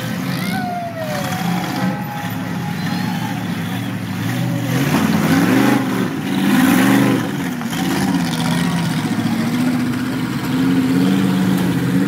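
Ultra4 rock-racing buggy engines revving hard as the buggies climb over boulders, the pitch rising and falling in repeated bursts of throttle. The revving is loudest about five to seven seconds in.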